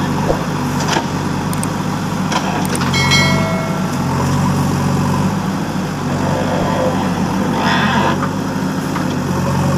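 JCB backhoe loader's diesel engine running steadily, its pitch shifting as it works, with a few short knocks early on and a brief high tone about three seconds in.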